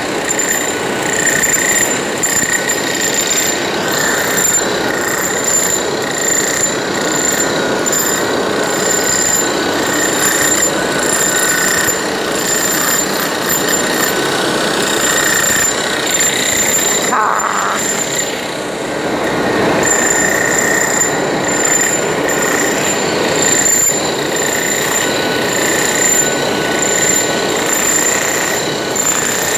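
Electric hammer drill pounding into a concrete floor, running continuously with a steady high-pitched whine over the hammering, with a brief let-up a little past halfway.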